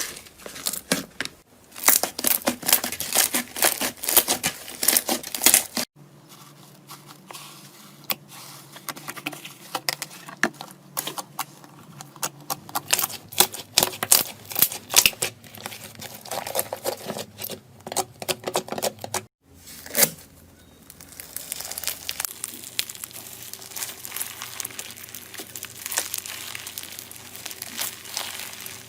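Slime being squeezed, poked and stretched by hand: rapid sticky crackles and popping clicks, in several short clips with abrupt cuts between them.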